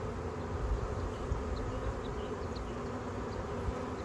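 Many honeybees from a newly installed package colony buzzing steadily around the open hive.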